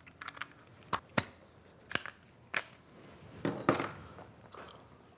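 A string of sharp knocks and clatters, about six, irregularly spaced, as small hard objects are handled and set down while someone rummages through things.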